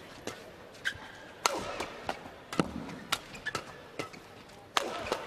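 Badminton rackets striking the shuttlecock in a fast men's doubles exchange: sharp smacks about twice a second. Crowd noise swells near the end.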